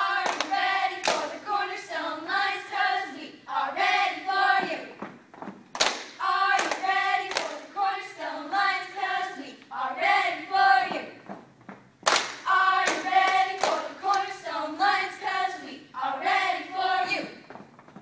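Cheerleading squad of girls chanting a cheer together in a sing-song unison, the same phrase three times about every six seconds, with sharp hand claps at the start of each phrase.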